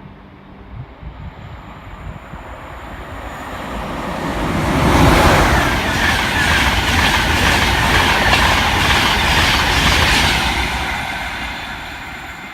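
ScotRail High Speed Train, with Class 43 power cars, passing through at speed. The rush and wheel clatter build to a peak about five seconds in, hold for about five seconds, then fade away.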